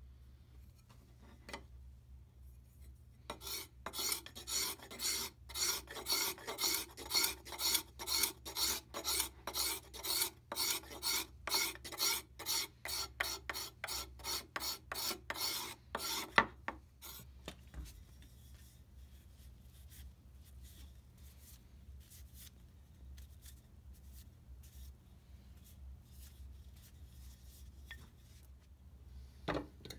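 A curved steel card scraper drawn again and again along a wooden mallet handle, about two or three scraping strokes a second for some thirteen seconds. A sharp knock ends the scraping, and only faint handling sounds follow.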